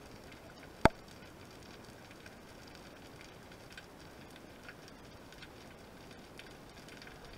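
Underwater ambience: a faint steady hiss with scattered light crackles and ticks, and one sharp click about a second in.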